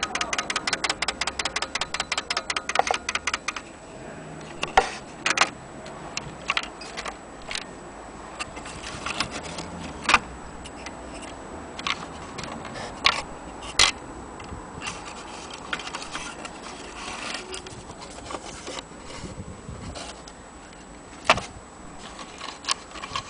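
Mechanical clicking from an antique Black Forest cuckoo clock: a rapid, even run of clicks at about seven a second that stops about three and a half seconds in, followed by scattered single clicks and light knocks.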